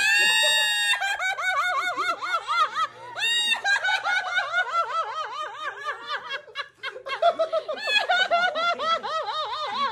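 Several people laughing together, in quick overlapping bursts, opening with a long high-pitched squeal.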